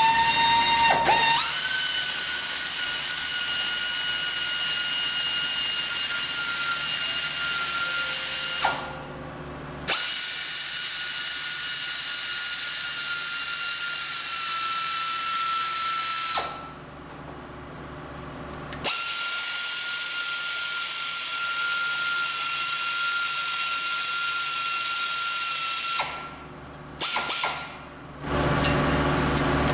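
Power ratchet spinning out cylinder head bolts: a steady motor whine in three long runs of about seven to nine seconds each, with short pauses between, starting again near the end.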